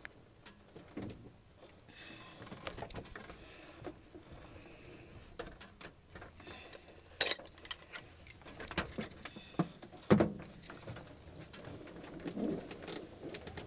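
Scattered knocks, clicks and rustles of a pilot shifting in a small light aircraft's cockpit and climbing out, the sharpest knocks about seven and ten seconds in.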